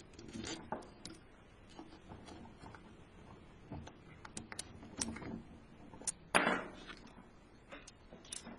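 Scattered clicks, taps and light clatter of small metal and wooden parts being handled and fitted together, with one louder knock about six and a half seconds in.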